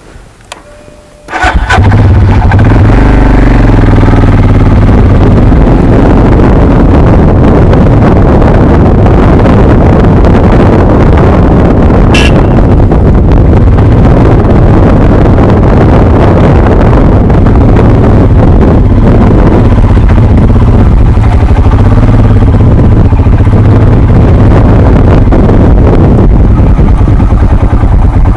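Motorcycle engine starting about a second and a half in, then running loud and steady as the bike rides along a dirt trail.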